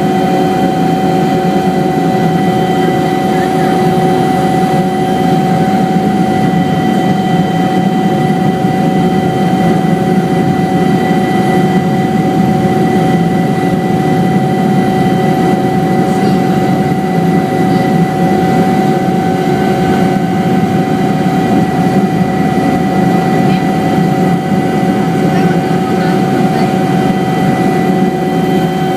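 Helicopter running steadily, heard from aboard: a dense engine-and-rotor rumble with a steady whine over it.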